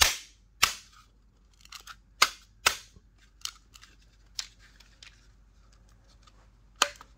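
Polymer Magpul carbine-length drop-in handguard being pushed and smacked into its delta ring and front cap: a string of sharp plastic clacks and knocks at irregular intervals, the loudest right at the start and a last one near the end. The handguard half is hard to seat and is not snapping in under the smacks.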